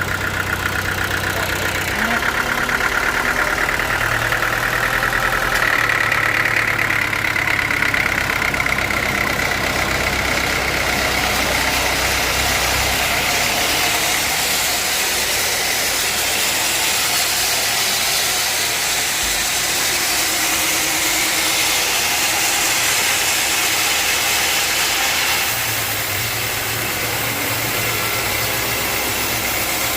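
Sawmill machine running steadily. A hiss grows from about ten seconds in.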